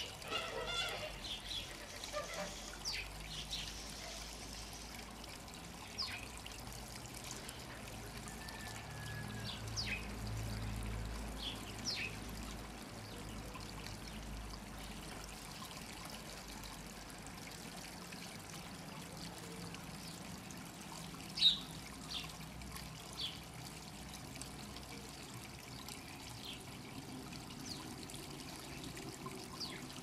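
Water from a garden-pond stream trickling and splashing over stones into the pond, with short high sparrow chirps scattered throughout, the loudest a little past two-thirds of the way through.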